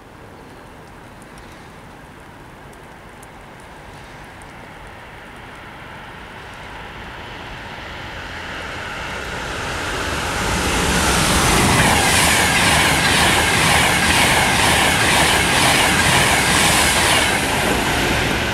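A train approaching at speed and growing steadily louder over about ten seconds, then passing close by with the rhythmic clatter of its wheels over the rails.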